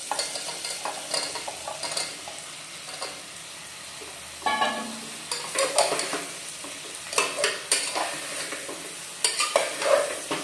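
A long spatula scraping and knocking inside a pressure cooker as chopped bottle gourd is tipped in and stirred into frying masala and chana dal, in irregular clusters of strokes over a faint sizzle.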